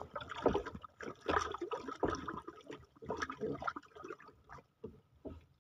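Irregular water splashes and gurgling at the side of a small wooden canoe as a hooked fish is brought up to the surface.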